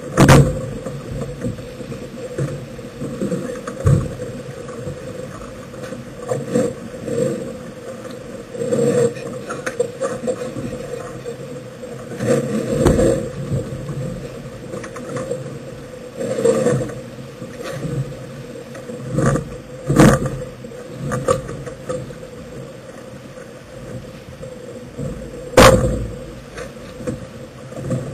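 Steady rushing noise of a sailboat under way under spinnaker, broken by several sharp knocks and bangs, the loudest just after the start and again about twenty and twenty-five seconds in.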